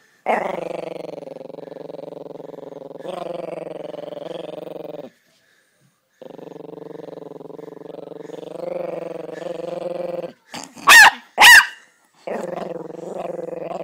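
A Chihuahua growling in long, steady rumbles, with a short pause about five seconds in. About eleven seconds in it gives two loud, sharp barks close together, the loudest sounds here, then goes back to growling.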